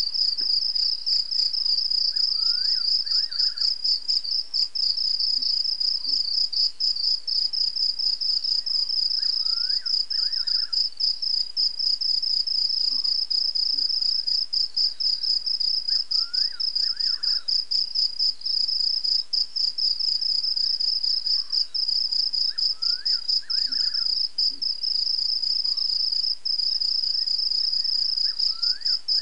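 Crickets trilling in a dense, steady high-pitched chorus. Beneath it, a second animal gives a short run of three or four quick rising notes, repeated four times at intervals of about six to seven seconds.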